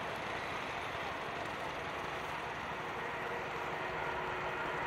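Jet airliner engines running, a steady roar with a faint whine.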